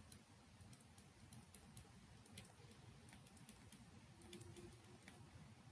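Near silence: faint room tone with scattered light clicks of a stylus tapping on a pen tablet while writing.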